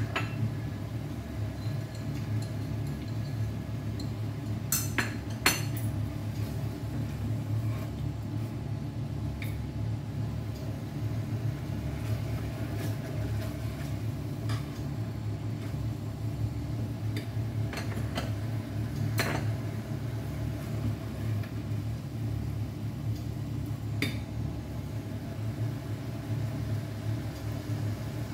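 A spatula stirring and scraping in a cooking pan, with a few sharp metal clinks against the pan, over the steady low hum of a kitchen fan.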